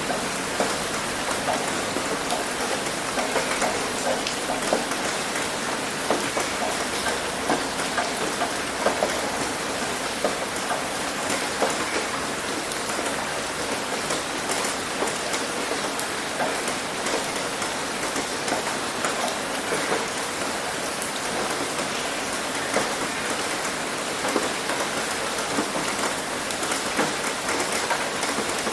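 Heavy rain hitting a roof: a steady dense patter with many individual drop impacts ticking through it.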